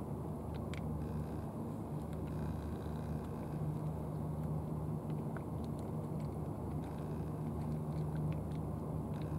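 A cat eating from a tray, its chewing heard as faint scattered clicks, over a steady low engine hum that is the loudest sound throughout.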